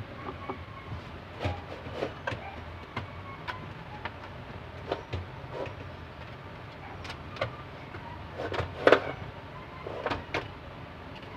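Scattered plastic clicks and knocks as a Sony CRT TV's main circuit board is worked loose and slid out of its plastic chassis frame, with a cluster of louder knocks about nine seconds in. A steady low background rumble runs underneath.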